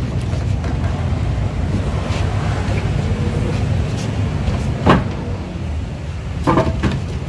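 A vehicle engine running steadily with a low rumble, with two short knocks about five and six and a half seconds in.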